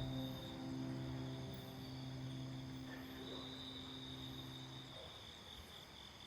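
Crickets chirping steadily, with a held low chord of outro music that ends about five seconds in.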